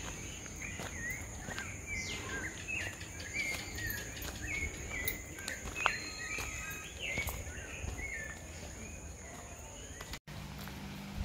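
Birds calling over a steady, high-pitched insect whine: a short gliding call repeats about twice a second. Both stop abruptly about ten seconds in.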